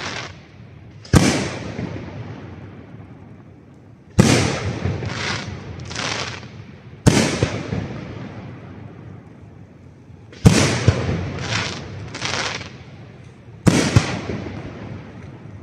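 Aerial firework shells bursting overhead: five loud booms about three seconds apart, each trailing off in a long rolling echo, two of them followed by a pair of smaller bangs.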